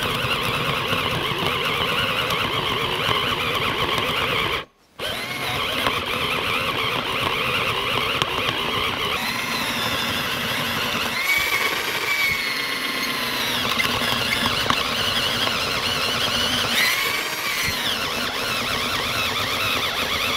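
Genesis cordless drill boring a 1-inch spade bit into a wooden beam, running steadily under load with its pitch wavering as the bit cuts. It stops briefly about five seconds in, then starts again.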